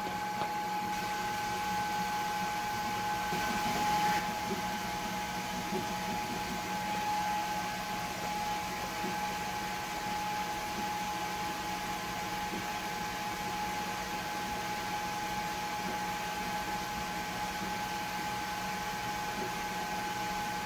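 Enclosed diode laser engraver with air assist running while it engraves a test grid into a rubber sheet: a steady machine hum under a constant high whine.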